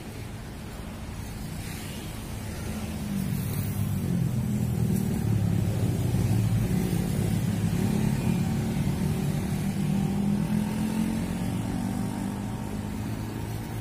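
Traffic on a multi-lane city road, cars and motorcycles driving past. The engine noise grows louder about three seconds in and eases off near the end.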